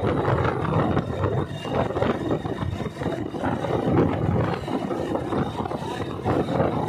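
Motorcycle riding along a street, its engine running under a rough, fluctuating rush of wind on the phone's microphone.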